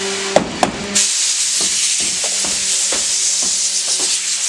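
Compressed air hissing steadily from an air gun, starting abruptly about a second in, as air is blown into a fiberglass boat mold to break the cap loose. A couple of sharp knocks come just before the hiss, and light taps sound through it.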